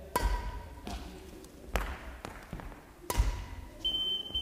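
Badminton racket striking shuttlecocks: three sharp hits about a second and a half apart, each with a dull thud from below, in a sports hall. A thin steady high tone comes in near the end.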